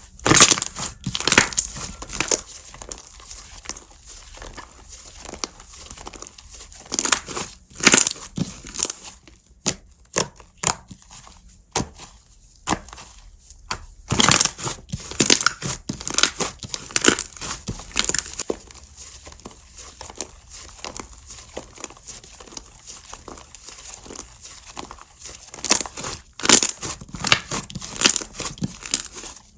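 Slime being squeezed, stretched and poked by hand, giving irregular crackling pops and clicks, with louder clusters of pops several times.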